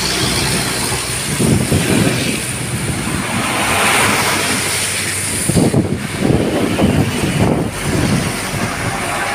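Heavy diesel cargo trucks and motorcycles passing close by on a wet road, tyre noise hissing on the wet surface, with a deep engine rumble that swells as each truck goes by, loudest in the second half.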